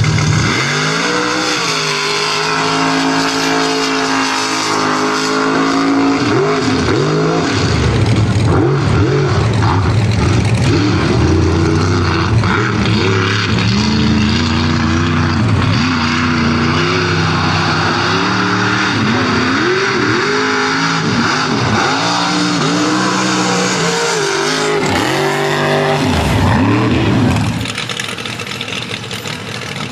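Mega mud truck engine revving hard as it launches and runs down a mud track, its pitch climbing and falling again and again through the run. Near the end the sound drops to a quieter engine idling.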